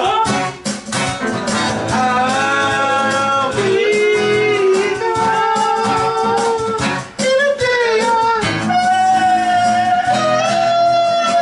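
A voice singing a melody with long held notes over a strummed guitar.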